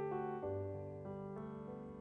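Background music: a slow piano tune with sustained notes that change about every half second and slowly fade.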